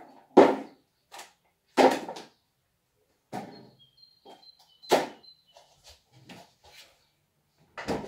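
Rummaging in an open fridge: a series of knocks and clatters as containers are moved and set down, with a faint brief ringing clink about halfway through. The fridge door is shut near the end.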